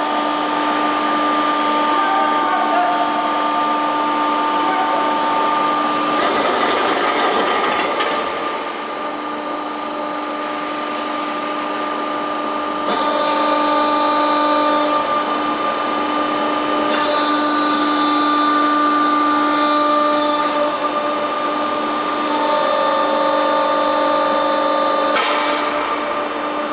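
Hydraulic power unit of a pedestal-mounted material handler running with a steady whining hum. The hum shifts in loudness and tone every few seconds as the hydraulics work the boom and the orange-peel grapple, with a rougher, hissier stretch about six seconds in.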